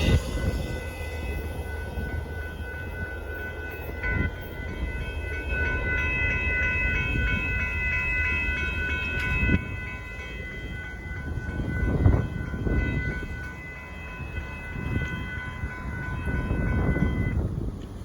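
Amtrak passenger train passing, its horn sounding one long steady chord that starts about four seconds in and cuts off suddenly near the end, over the steady rumble of the train, with a few brief thumps.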